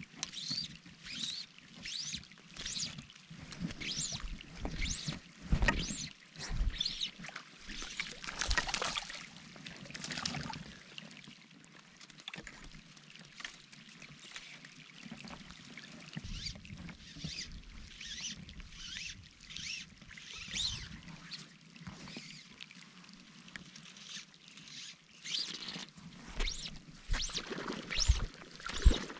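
Splashing and sloshing in shallow lake water, coming and going irregularly, loudest about six and nine seconds in and again near the end.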